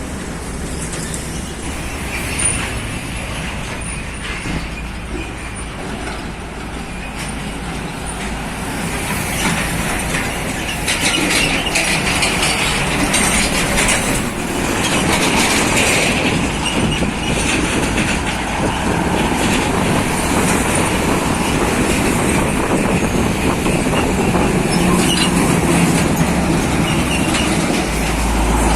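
Heavy lowbed trucks of a convoy driving past, their diesel engines running and wheels on the road making a steady noise that grows louder about eight seconds in.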